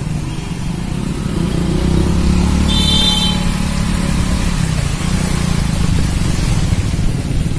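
Motorcycle engine running with a steady low rumble, and a short high-pitched horn beep about three seconds in.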